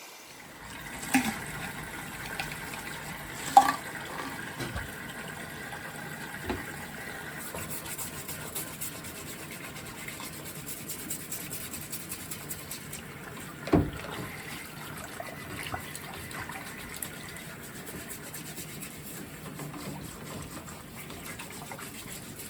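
Water running and trickling steadily, as when range-hood parts are washed or soaked. Three sharp knocks of hard parts sound over it: one near the start, a loud one a few seconds in and another past the middle.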